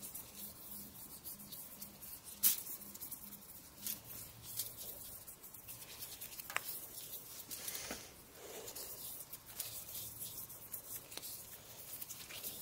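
Faint rubbing of nitrile-gloved hands working an oil finish into a small wooden block, with a few light clicks from handling, the sharpest about two and a half seconds in.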